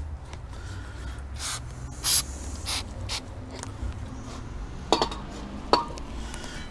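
An aerosol spray can hissing in several short bursts onto a new brake rotor to clean off any oil. Two sharp knocks follow near the end.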